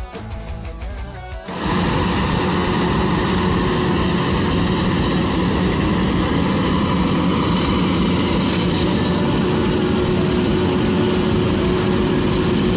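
Guitar music cuts off about a second and a half in, giving way to the loud, steady running of a rice combine harvester's engine at close range.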